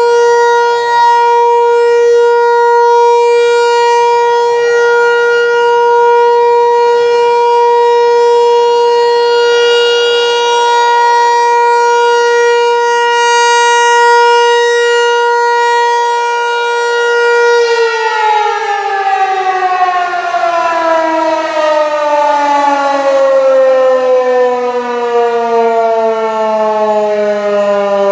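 American Signal Tempest T-128 outdoor warning siren sounding a steady, loud alert tone for its monthly test. About 17 seconds in it shuts off and winds down, its pitch falling slowly.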